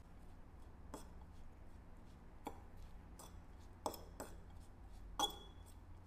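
Metal fork clinking against a ceramic bowl while tossing shredded potato with flour: about six light, uneven clinks, the loudest about five seconds in with a short ring.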